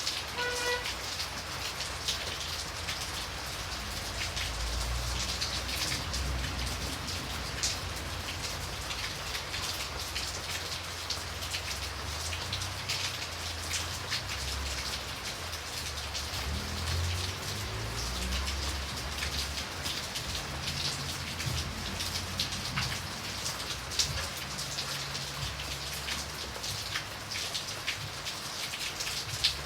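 Steady rain falling, with a dense patter of individual drops and now and then a louder drop tap. A low rumble comes and goes underneath.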